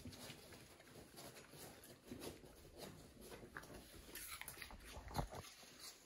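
Pet raccoon making faint snuffling and lip-smacking sounds, with one sharp tap about five seconds in.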